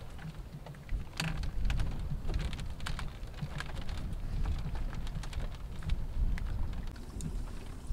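Wind buffeting the microphone in a fluctuating low rumble, with scattered light clicks and crackles throughout.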